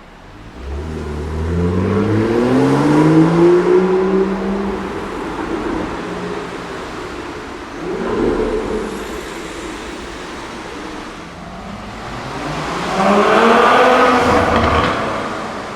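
Supercar engine accelerating in a tunnel, its note rising steadily in pitch for about four seconds, then a short swell of revs; near the end, another rising engine note.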